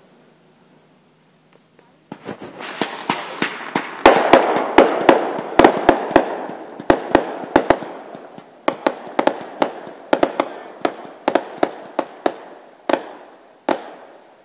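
Fireworks going off in a rapid barrage of sharp bangs and pops over continuous crackling. It starts about two seconds in, is densest around four to eight seconds in, then thins to scattered bangs near the end.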